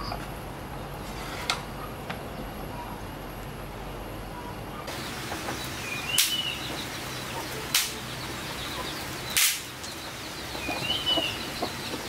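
A light knock as a machete is hung on a wooden post, about a second and a half in, then three sharp cracks of dry sticks being snapped for kindling, the loudest about six seconds in, with two short bird chirps between them.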